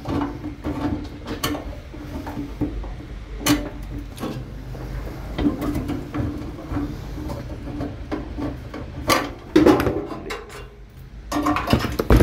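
Hand screwdriver working out the screws that hold a microwave oven's transformer to its sheet-metal chassis: scraping turns with scattered metal knocks and clunks, the loudest about nine to ten seconds in and again near the end.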